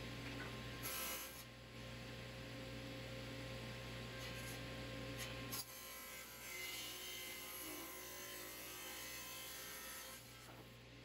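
Table saw running with a steady motor hum while a board is ripped into a thin strip against the fence. About halfway through, the sound shifts to more hiss as the blade cuts the wood.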